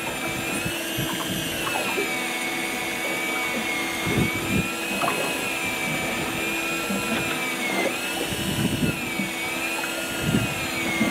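Electric fishing reel motor winding in line against a hooked lingcod: a steady high whine whose pitch sags and recovers as the load from the fish changes, with a few soft knocks.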